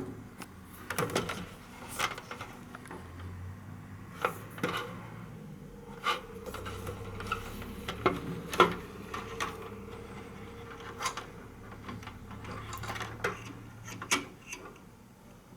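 Irregular clicks, taps and scraping of small hard parts being handled, a dozen or so sharp strokes spread unevenly, over a faint steady low hum.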